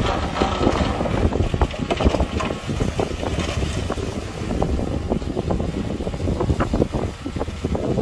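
Heavy diesel earthmoving machinery running under load, with irregular knocks and clanks. Wind buffets the microphone.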